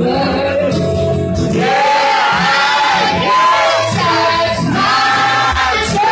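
Live country song played through a PA system: a woman sings the lead vocal over her band.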